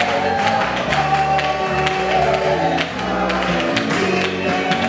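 Congregation singing a gospel worship song together over music, with steady rhythmic hand clapping.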